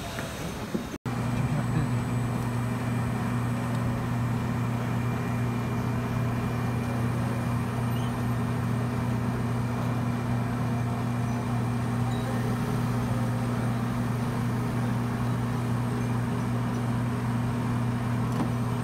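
Soft-serve ice cream machine running with a steady low motor hum while dispensing a tall cone.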